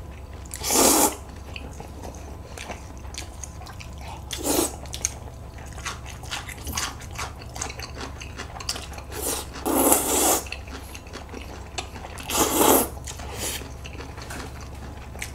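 Jjajangmyeon (black-bean-sauce noodles) being slurped up from the bowl: four short slurps spread through, with soft wet eating sounds between. A steady low hum runs underneath.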